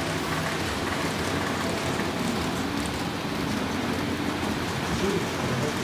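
HO-scale model train, a red ÖBB Railjet, running past on the layout track: a steady rolling noise of metal wheels on rail.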